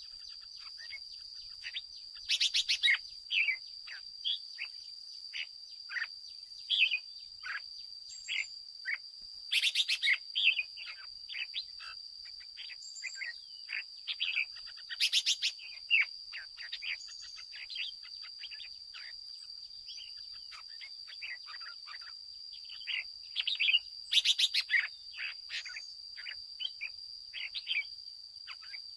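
Red-whiskered bulbuls calling: a dense run of short quick chirps and whistled notes, with four loud, rapid buzzy bursts spread through, over a steady high-pitched drone.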